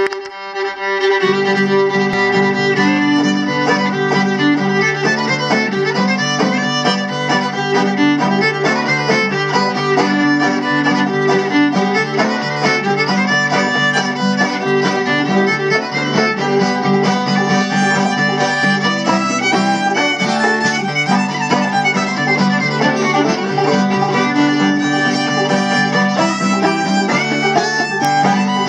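Fiddle, clawhammer banjo and acoustic guitar playing an old-time tune together, with the fiddle carrying the melody. The lower accompaniment comes in about a second in, under the fiddle.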